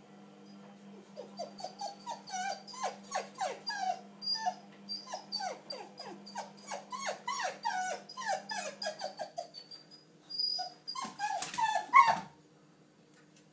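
Small dog whining at a shut door, wanting through: a long run of short, falling cries, several a second. Near the end it jumps up and scrapes its paws on the door, with a few louder cries.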